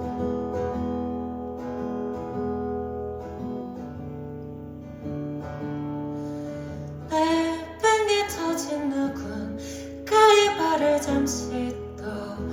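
Live acoustic guitar playing plucked chords, joined a little over halfway through by a voice singing sliding, bending notes.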